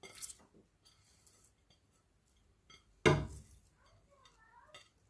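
Kitchen handling while ingredients go into a mixer jar: a few light clicks, then one sharp knock about three seconds in.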